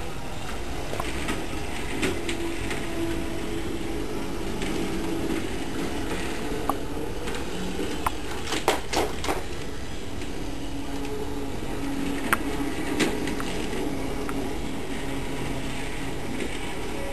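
LEGO monorail train's electric motor whirring steadily as the train runs along its elevated plastic track, with a handful of sharp clicks and clacks around the middle and a couple more about three-quarters in.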